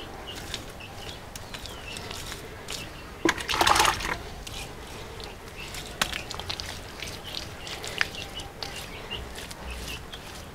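Hands smoothing wet mud over a freshly built mud stove: soft wet smearing and patting, with one louder stretch about three and a half seconds in.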